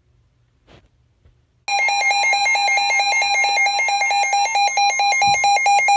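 Emergency Alert System attention signal: a loud, steady electronic alarm tone with a fast, even pulsing. It starts suddenly about two seconds in, after near silence, and announces an emergency alert broadcast.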